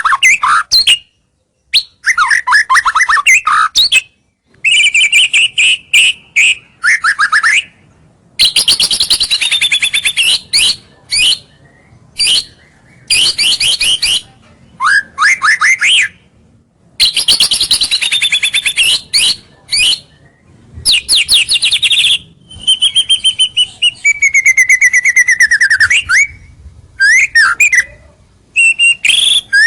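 White-rumped shama singing loud, varied phrases of clear whistles, rapid trills and sliding notes, with short pauses between phrases.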